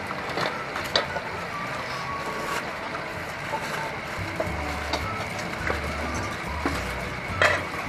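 Busy street-food stall ambience: a steady wash of crowd and street noise, with a few sharp clinks of metal utensils against steel bowls as chicken is dipped in batter and tossed in flour.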